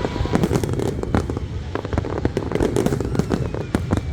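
Fireworks exploding in rapid, irregular succession: many sharp bangs and crackles over a continuous low rumble of distant bursts.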